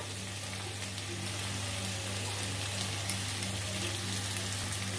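Spiced potato cubes frying in oil in a kadai: a steady, soft crackling sizzle as a perforated metal spoon stirs through them, with a low steady hum underneath.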